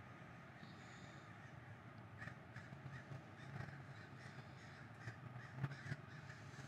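Quiet outdoor ambience: a steady low background rumble, with a bird calling a few times in the middle.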